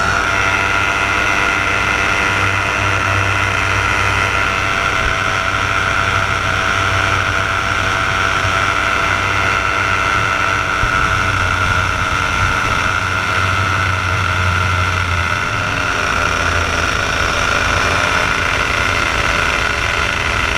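Paramotor engine and propeller running steadily in flight: an even drone with a strong steady whine and a low rumble that swells and fades.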